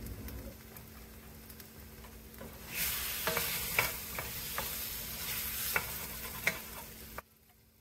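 Chopped tomatoes sizzling in oil in a kadhai while being stirred, the spatula clicking against the pan several times. The sizzle turns louder about three seconds in and stops abruptly near the end.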